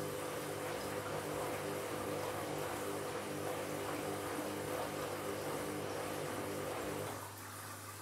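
Candy Grand'O front-loading washing machine turning its drum during the wash: a steady motor hum over water noise, the motor stopping about seven seconds in.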